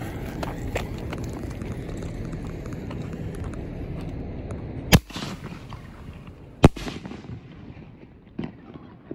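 A 5-inch canister shell firework: its fuse hisses and sputters, then the lift charge fires the shell from its mortar tube with a sharp bang about five seconds in, and the shell breaks overhead with a louder bang under two seconds later, followed by a fainter pop.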